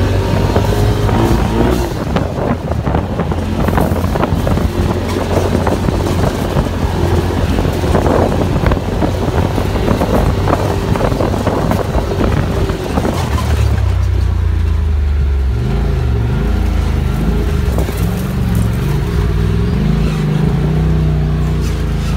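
Side-by-side UTV running along a rough dirt trail, with its engine and drivetrain droning under load and the cage and body rattling and knocking over the bumps. From about the middle onward the engine note wavers up and down as the throttle changes.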